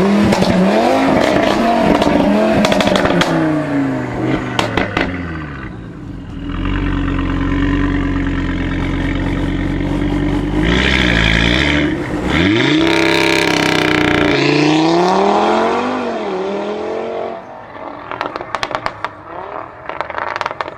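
Audi RS3 8V's turbocharged 2.5-litre five-cylinder, heard through a decatted valved exhaust, revving up and down several times with pops and crackles, then pulling away hard. It fades after about seventeen seconds, leaving scattered crackles.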